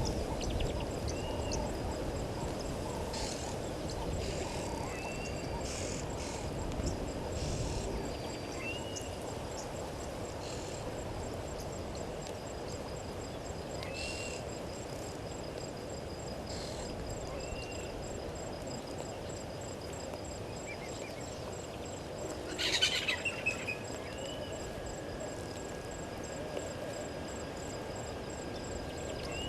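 Waterhole ambience in the African bush: insects trill steadily at a high pitch while a bird repeats a short whistled note every couple of seconds. A louder, brief bird call comes about three quarters of the way through.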